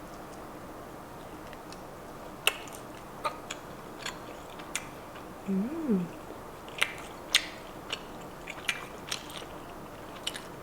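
Close-miked chewing of a thick, chewy piece of beef tapa: irregular wet mouth clicks and smacks, with a short hummed "mm" about halfway through.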